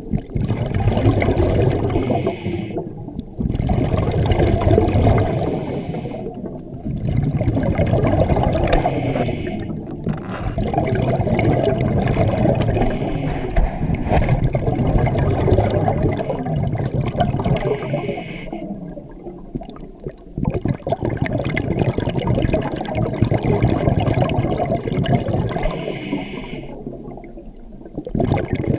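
Scuba diver's regulator breathing underwater, in a cycle repeating every few seconds: a short hiss on each inhalation and a gurgling rush of exhaled bubbles, with brief quiet pauses between breaths.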